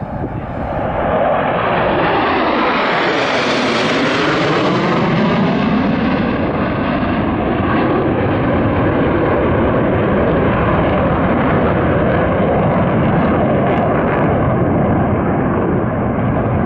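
A formation of USAF Thunderbirds F-16 fighter jets flying overhead. Their jet engine noise builds over the first couple of seconds and sweeps in pitch as they pass about three seconds in. It then holds steady and loud as the formation splits apart.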